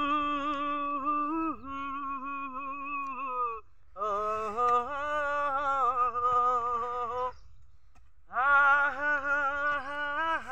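A man singing the song's melody without words, in three long, held phrases with vibrato and short breaks between them.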